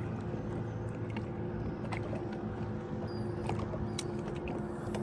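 Electric trolling motor humming steadily on a boat, with a few light clicks about two, three and a half and four seconds in.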